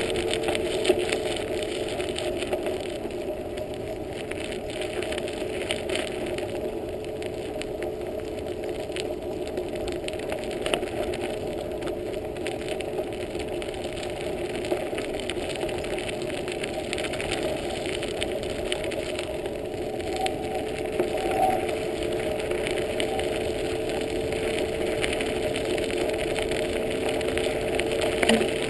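Bicycle rolling steadily along a trail behind a pulling dog team: continuous tyre and ride noise with a steady hum underneath.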